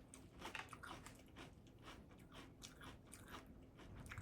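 Faint close-up chewing of a tuna melt sandwich: irregular soft crunches and wet mouth clicks.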